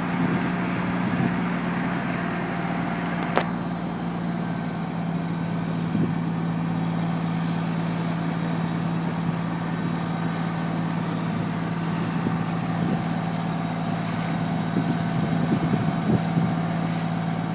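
Fire truck's engine running steadily with a constant low drone, driving the pump that feeds the aerial ladder's water stream. A single sharp click comes about three seconds in.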